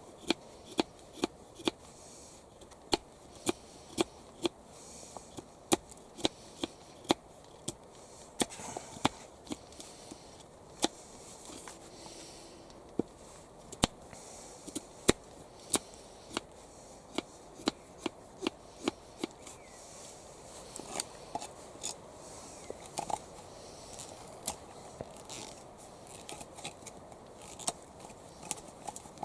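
Hand tools working wood: a long run of sharp, irregular cuts or knocks, about one to two a second.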